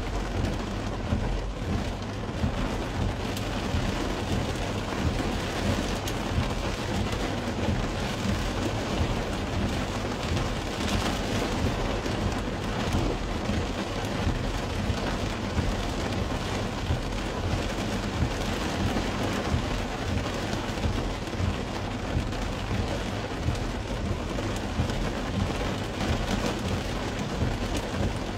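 Rain falling on a car's roof and windshield, heard from inside the cabin: a dense, steady patter of many small drops.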